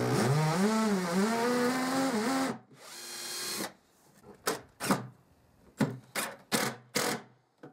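A cordless drill boring a pilot hole into a veneered back panel, its motor whine wavering up and down in pitch for about two and a half seconds, then a shorter, quieter run. After that an Erbauer impact driver drives a screw in a series of short bursts.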